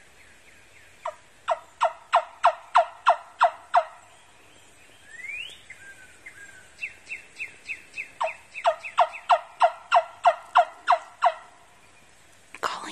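Turkey call worked by a hunter, giving two series of hen yelps, each of about nine short notes that drop in pitch, about three a second, with a faint rising squeak between the series. The yelps are calling to draw in a wary tom.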